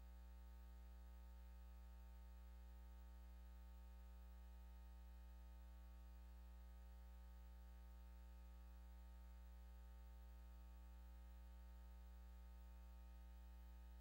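Near silence with a faint, steady low electrical hum.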